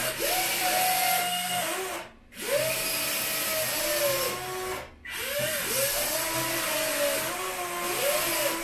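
Electric motors of a 1:14 Double Hobby Volvo EC160E RC excavator (electric version) whining as the machine is worked, the pitch rising and falling as each movement starts and stops. The motors cut out briefly about two seconds in and again around five seconds in.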